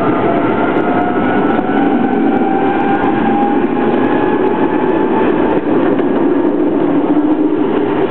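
Metre-gauge electric tram running on its track, heard from the rear of the car: a steady rumble of wheels on rail, with a motor whine that slowly rises in pitch as the tram picks up speed after a stop.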